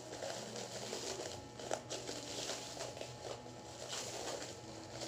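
Clear plastic packaging wrap crinkling irregularly as it is handled and unwrapped, with a few sharp clicks.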